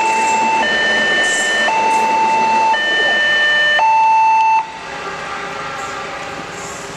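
Railway level-crossing warning siren sounding an electronic two-tone alarm, its pitch switching back and forth about once a second. It stops abruptly about four and a half seconds in, leaving quieter vehicle noise.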